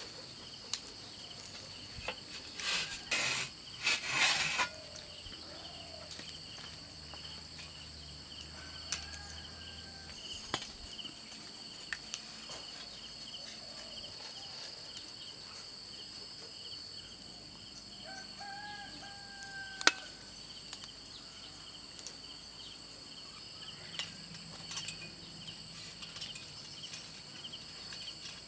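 Steady insect chorus with a fine pulsing high buzz. A few short, loud scraping noises come about three seconds in and a single sharp click near twenty seconds, from the metal skewers of a roast being handled.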